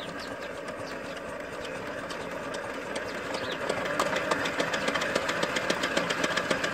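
Small single-cylinder diesel engine of a two-wheel walking tractor running with a regular knocking beat, growing louder in the second half.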